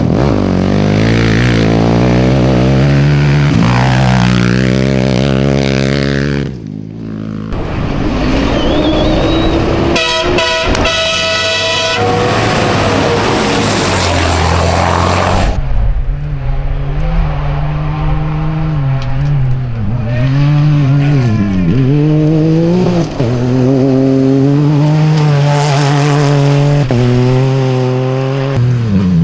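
Rally-raid vehicles at full throttle on dirt tracks, one after another: a quad bike's engine revving hard, then a race truck, then a car passing. The engine note climbs and drops with gear changes and throttle lifts.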